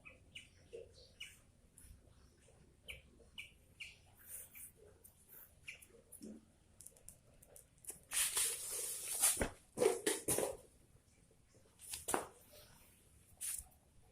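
Caged bulbul giving short, scattered high chirps, with a few louder rustling bursts about two-thirds of the way in.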